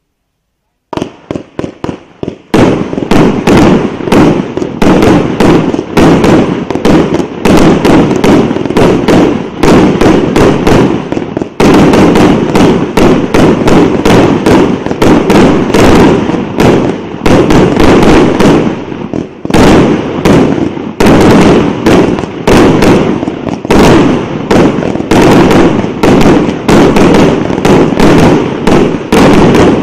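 A 100-shot, 1.2-inch aerial repeater cake firing its shells in a rapid, continuous barrage of sharp bangs, several a second. It starts about a second in with a few lighter pops, then runs on dense and loud with only brief lulls.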